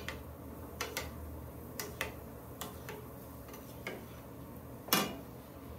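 A spatula knocking lightly against a stainless steel pan of boiling pretzel bites: about eight small, irregular clicks, the loudest one near the end, over a low steady hum.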